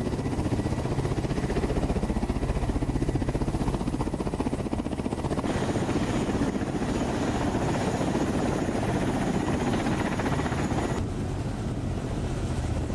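Kamov Ka-52 attack helicopter on the ground with its coaxial rotors and turboshaft engines running: a steady rapid blade chop under a thin high turbine whine. The sound changes abruptly twice, near the middle and near the end.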